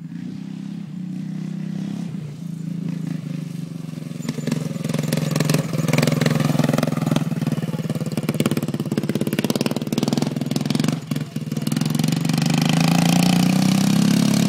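Racing lawn mower engine running hard on a lap, getting louder as it comes closer. It dips briefly about eleven seconds in, then is at its loudest near the end.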